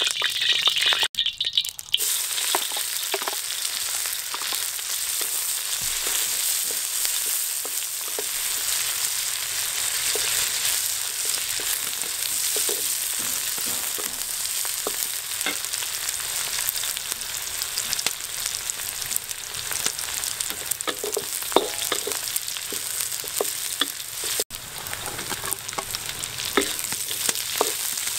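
Hot oil sizzling steadily in a steel wok as sliced vegetables and red chilies stir-fry. A wooden spatula stirs through them, giving scattered short scrapes and knocks against the wok.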